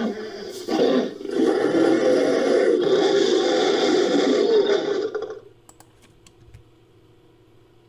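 Made-up Neovenator dinosaur roar sound effect, mixed from animal and monster roar recordings: a short rough growl, then a longer harsh roar lasting about four seconds that cuts off about five seconds in, leaving only a few faint ticks.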